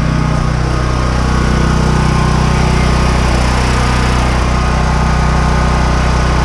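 A small engine running at a steady speed with an even hum, getting a little louder about a second and a half in.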